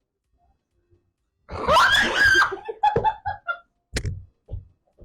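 A person screams in fright about a second and a half in, then laughs in short repeated bursts, with a couple of dull thuds near the end.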